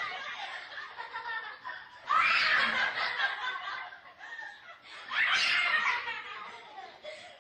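Laughter with high squeals, in two loud bursts about two and five seconds in, fading between them.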